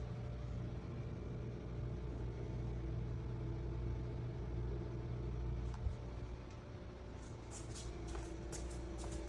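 Steady low mechanical hum, with a single light knock about six seconds in and a few faint ticks near the end.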